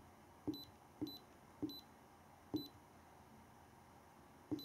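Keypad button presses on an iCarsoft i907 handheld scan tool, each giving a click and a short high beep as the menu scrolls down one line; about five presses, unevenly spaced, with a longer pause before the last.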